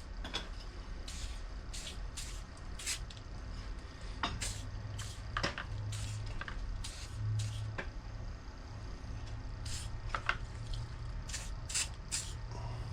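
Short, irregular bursts of spray cleaner and rubbing on a Homelite 26cc string trimmer's carburetor as Sea Foam is applied to loosen the grime.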